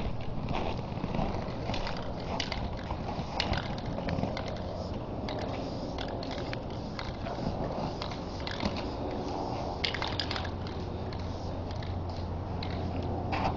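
Aerosol spray-paint cans hissing in short, repeated bursts against a brick wall, mixed with the crunch of feet shifting in snow.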